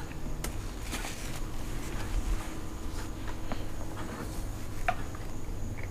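A man chewing a mouthful of slider, with a few faint short clicks and paper-napkin rustles, over a steady low hum.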